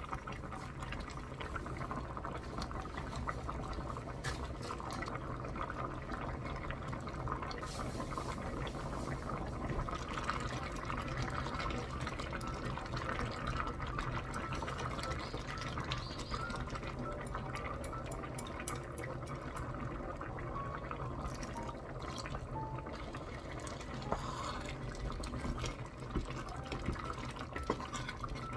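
Soybean-paste stew (gangdoenjang) simmering in a pot, bubbling and crackling steadily.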